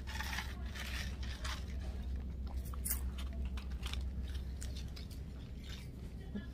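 Ice being crunched and chewed in the mouth: irregular crunches, roughly one or two a second, growing fainter near the end.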